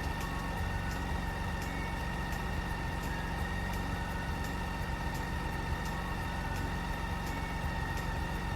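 A steady low machine hum with faint steady high whining tones and light regular ticks, unchanging throughout.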